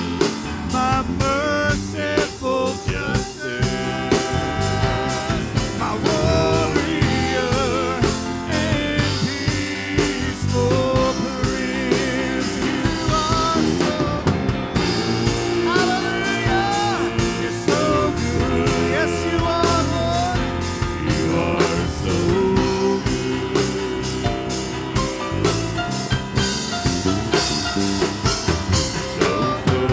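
Live worship band playing: a drum kit keeps a steady beat under full band backing, with a melodic lead line winding over it.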